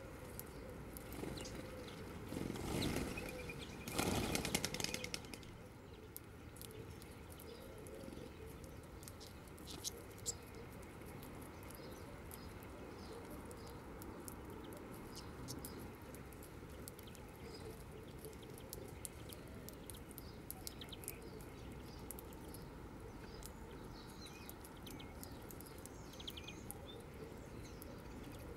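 Wingbeats of birds flapping in to a ground feeding spot, two loud flurries in the first five seconds, followed by scattered faint chirps and small ticks from the feeding flock.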